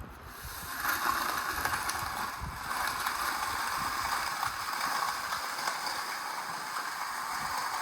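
Water spraying steadily onto a freshly poured concrete slab, wetting it to slow the cure; a steady hiss that starts about a second in.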